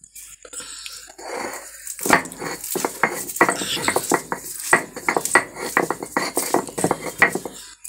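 Stone roller crushing dry-fried jackfruit seeds on a stone grinding slab (shil-pata): a rapid, irregular run of sharp cracks and stone-on-stone knocks as the hard seeds break. It starts about two seconds in, after a softer scrape.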